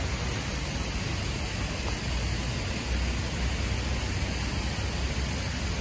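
Steady hiss of many pop-up spray sprinkler heads watering a lawn, over a low steady rumble.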